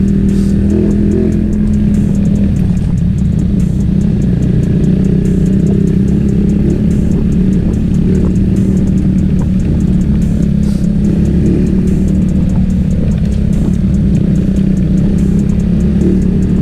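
Suzuki Raider R150 motorcycle's single-cylinder four-stroke engine running at a steady cruise, a loud low drone with no change in pitch.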